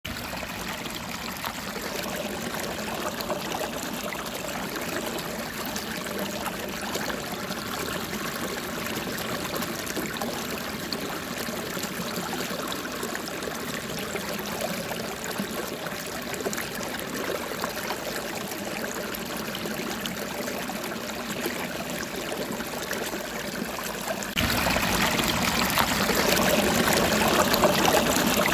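Steady noise of flowing water, which suddenly becomes louder about 24 seconds in.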